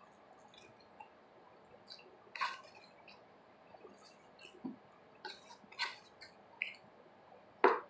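Someone eating off a plate with a fork: a scattering of short, soft, wet clicks and smacks, about half a dozen, the loudest just before the end.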